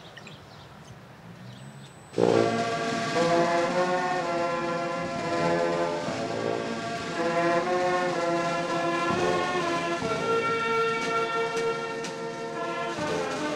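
Military brass band of trumpets, saxophones and drums striking up about two seconds in with a loud opening chord, then playing a slow piece of held brass chords.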